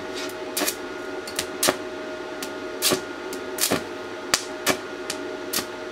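Stick (arc) welding with an E6013 flux-coated rod on mild steel: the arc hisses and crackles steadily, with irregular sharp pops and spits about every half second.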